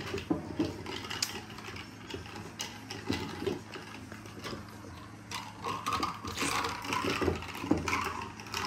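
Ice cubes clinking and rattling against a drinking glass as a plastic straw is worked around in a milk drink, in a scatter of light clicks.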